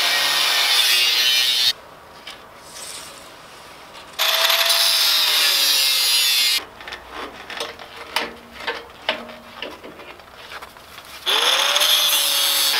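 Handheld angle grinder cutting through the steel tube frame of an old bus seat, in three loud bursts of harsh, high-pitched grinding with the motor whine sagging under load. Between the cuts there are lighter clinks and knocks of metal. Near the end the motor whine climbs as the grinder spins up for the next cut.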